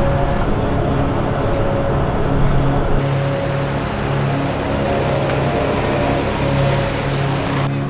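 Steady running noise of a vehicle heard from on board, a low rumble and hum. The sound changes abruptly about three seconds in and again near the end.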